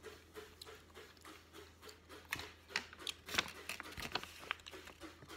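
Faint handling noise: a run of short clicks and paper rustles from about two seconds in, as a printed paper instruction sheet is picked up and handled.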